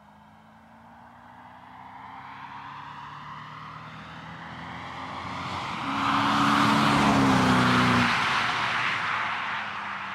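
BMW E60 545i's V8 with an AC Schnitzer performance exhaust, driving past at a steady speed: the exhaust note and tyre noise grow louder as it approaches, peak as it passes about eight seconds in, then the note drops in pitch and fades as it drives away.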